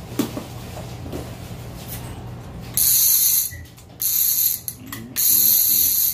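Clicker on a purple Avet conventional fishing reel buzzing as the spool is spun by hand: three loud bursts of rapid ratcheting in the second half, after a few light handling clicks. This is the louder clicker that signals a fish pulling line off the reel.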